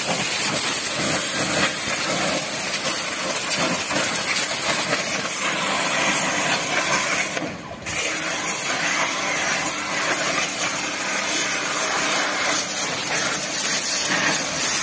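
Bosch Aquatak 125 electric pressure washer's high-pressure water jet spraying against a car tyre and wheel arch, a loud steady hiss. It stops for about half a second halfway through, then carries on.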